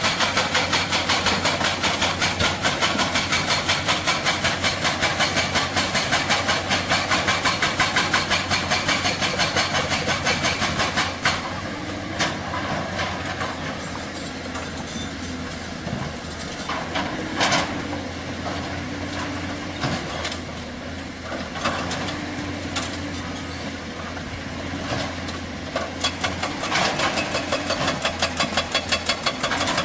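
Excavator-mounted hydraulic rock breaker hammering rock in rapid, even blows. It stops about eleven seconds in, leaving the diesel engine running with a few knocks, and starts hammering again near the end.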